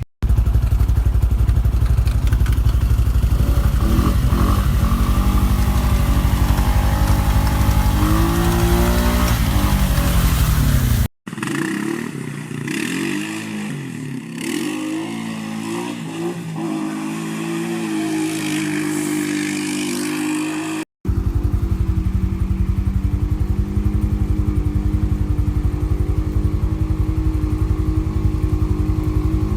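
ATV engine running under throttle, its pitch rising and falling as it revs, in three separate stretches broken by sudden cuts. The middle stretch is quieter with less low rumble.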